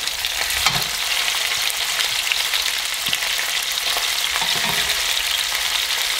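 Beef short ribs searing in hot olive oil in a Dutch oven: a steady sizzle with scattered sharp crackles as more ribs are laid into the pan with tongs.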